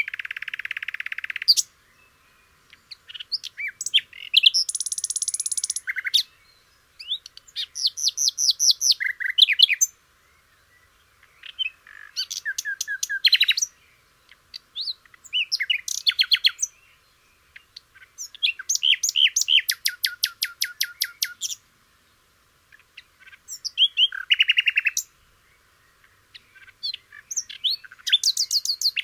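Recorded songs and calls of several different birds, played one after another as short clips about eight times, each a second or a few seconds long and cut off by a brief silence. Most are rapid trills of repeated chirping notes; one near the start is a steady buzz and another a few seconds in is a high thin note.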